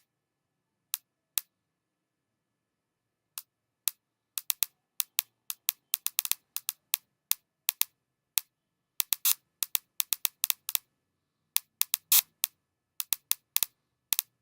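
Electronic click noise synthesized in a Max/MSP patch: short, sharp digital clicks with dead silence between them, a few scattered at first, then coming faster and at irregular intervals from about four seconds in.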